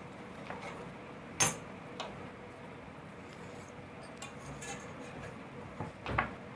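Light clicks and taps of a steel ruler and tape measure being handled and set down on cloth over a wooden table, the sharpest about a second and a half in and a couple more near the end, over a faint steady hiss.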